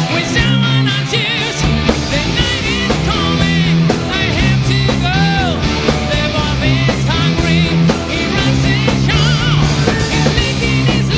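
Rock band playing live: electric guitar, bass and drums, with a lead singer singing over them.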